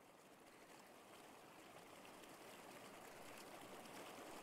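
Faint, steady rain patter fading in, slowly growing louder.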